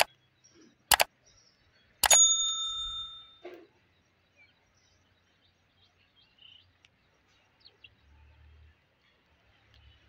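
Subscribe-button sound effect: two mouse clicks about a second apart, then a third click with a bright bell ding that rings for about a second and fades. After that only faint outdoor background with a few small chirps.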